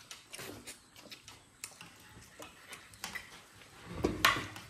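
Scattered light clicks and taps of cutlery against plates while people eat, with a louder knock about four seconds in.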